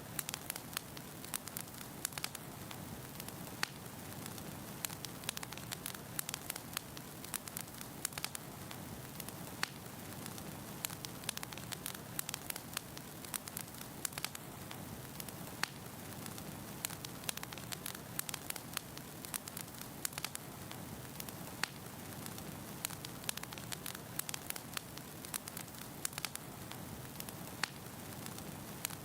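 Firewood burning in a fireplace: a steady low hiss of flames with frequent sharp, irregular crackles and pops from the logs.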